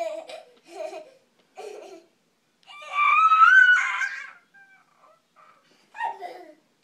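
A toddler's voice: a few short high calls, then a loud, high-pitched squeal about three seconds in that lasts over a second, and a shorter call near the end.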